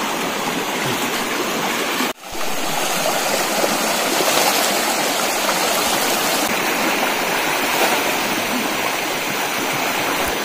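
Shallow stream rushing over rocks: a steady, dense splashing wash of water that drops out for a moment about two seconds in.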